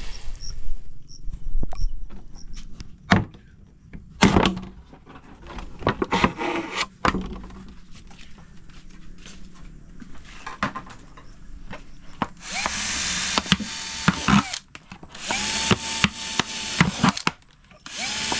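Cordless drill boring holes in a plastic water bottle: two runs of about two seconds each near the end, each with a steady motor whine. Before them come scattered knocks and handling sounds.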